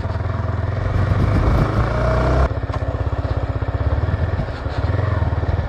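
Yamaha R15 V4's single-cylinder engine running as the motorcycle is ridden slowly, heard through a mic inside the rider's helmet. The sound shifts abruptly about two and a half seconds in.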